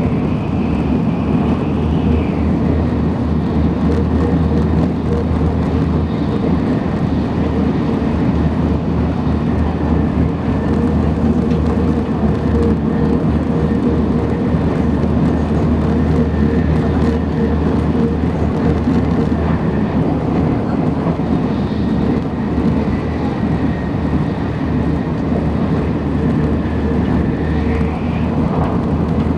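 Tokaido Shinkansen Nozomi bullet train running, heard from inside the passenger car: a steady rumble of wheels on rails with a faint high whine that drops in pitch about two seconds in and rises again near the end.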